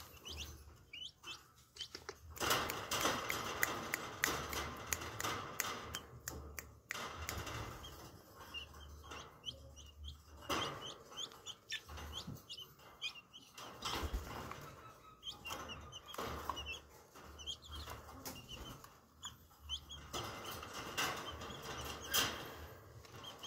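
Green junglefowl chicks peeping in short, high chirps throughout, with several stretches of wing fluttering and scuffling as they crowd together in a wire cage.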